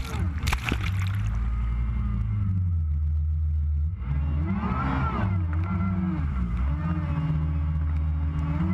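Jet ski engine running and revving up and down as it skims across the water, with a burst of splashing spray in the first second.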